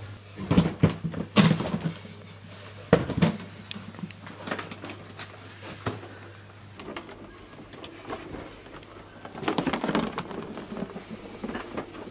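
Scattered knocks and clatters of gear being handled and a plastic equipment case being worked, over a steady low hum, with a denser run of clatter near the end.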